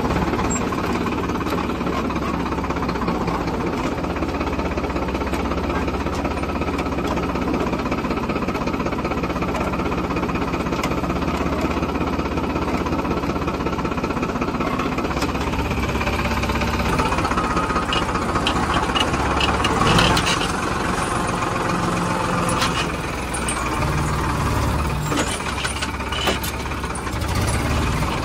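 Diesel tractor engine running steadily at idle. Scattered short metal clinks and knocks sound over it in the second half.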